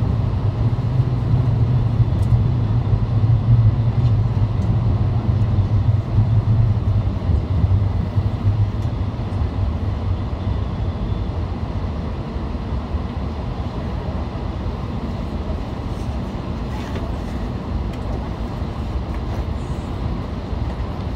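Running noise inside a CRH6A electric multiple unit carriage: a steady low hum over a broad rumble. The hum fades and the noise eases off from about eight seconds in, as the train slows on its approach to a station.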